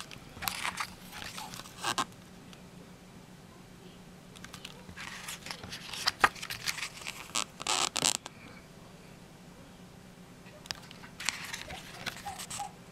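Pages of a hardcover CD booklet being turned by hand: three spells of paper rustling and flapping with sharp clicks, starting about half a second in, about four and a half seconds in, and about eleven seconds in.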